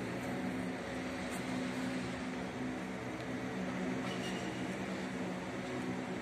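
Steady mechanical hum holding a constant low pitch over an even background hiss.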